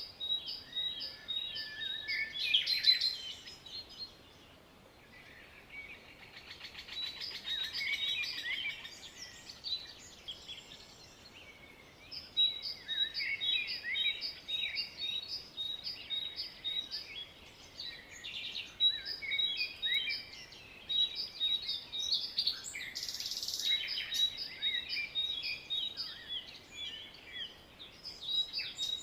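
Several songbirds singing and chirping together: dense overlapping chirps and short whistled notes, with one bird repeating a rapid high note, easing off briefly a few seconds in.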